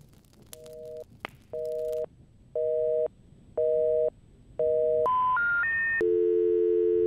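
Telephone tones: a busy signal of five short beeps, about one a second, then the three rising notes of a special information tone, then a steady dial tone from about six seconds in.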